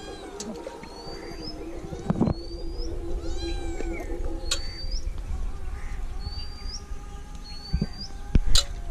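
A cat meows a few times, thin and high, while a bird repeats a short rising whistle every second or two.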